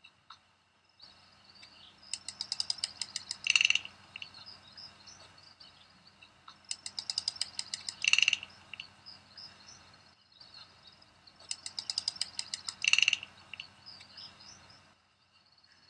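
A rapid, ratchet-like run of clicks repeats three times, about every four and a half seconds. Each run ends in a short, louder rasp. Small high chirps come and go between the runs, and everything stops about a second before the end.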